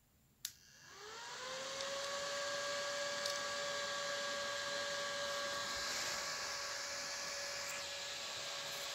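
A sharp click as the supply lead touches the battery terminal, then a homemade solid-state Tesla coil starts through its soft start: a tone rises in pitch over about a second and settles into a steady whine over a hiss.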